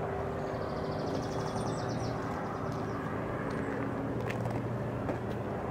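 Outdoor background: a steady low mechanical drone with several held tones, like a distant engine. A short, rapid, high-pitched trill runs from about half a second to two seconds in.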